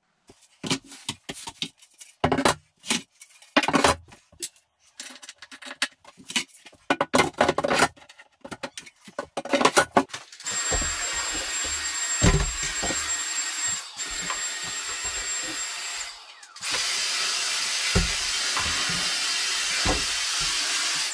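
Cabinet shelves knocking and clattering as they are set in place. Then a handheld vacuum runs steadily with a high whine, cuts out for about a second, and starts again.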